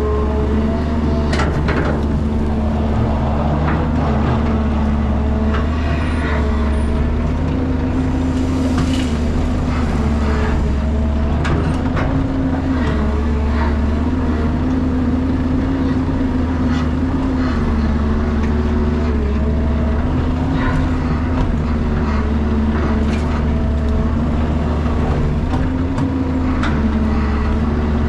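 Caterpillar 320 GC excavator's four-cylinder diesel engine running steadily under load while it swings and dumps soil, its note dipping and rising slightly every few seconds, with scattered short knocks.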